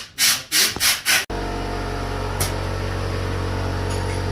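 Five quick rasping strokes, then an abrupt cut to a steady mechanical hum.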